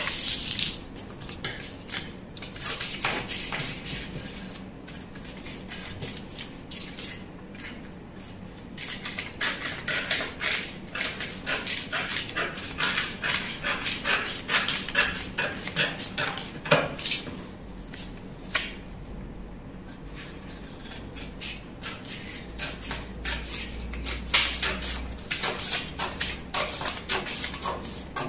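Scissors cutting through a brown-paper sewing pattern: a run of crisp snips with the paper crackling as it is handled, and a couple of louder knocks.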